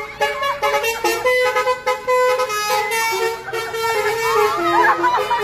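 Bus telolet horn, a basuri multi-trumpet air horn, playing a tune: several steady tones sound together and step from note to note without a break.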